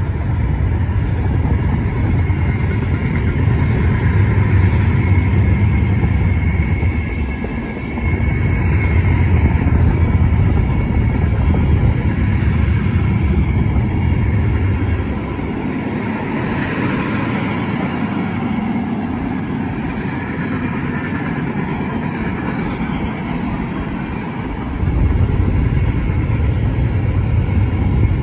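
Union Pacific freight train rolling past, cars of covered hoppers and tank cars: a steady, loud rumble and clatter of steel wheels on the rails. The deep low rumble eases off for several seconds past the middle and comes back near the end.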